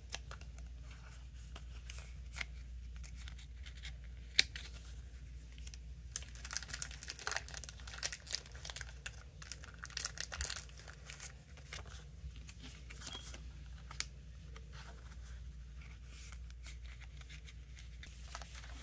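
Clear plastic photocard sleeves crinkling and rustling as cards are slid into them, with scattered light clicks and taps. There is one sharp tap about four seconds in, and the crinkling is busiest in the middle.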